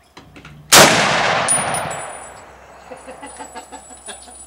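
A single shot from an old M1 rifle about a second in, its report rolling away over a second and a half or so.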